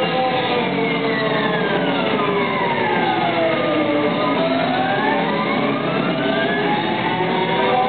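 Live band playing a dense, droning passage in which a siren-like tone slides slowly down in pitch for about four seconds, then climbs back up.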